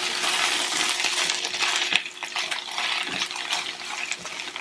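Fresh spinach sizzling in olive oil in a nonstick skillet while it is stirred with a spatula, with scattered sharp clicks and scrapes of the spatula on the pan. The sizzle eases a little about halfway through.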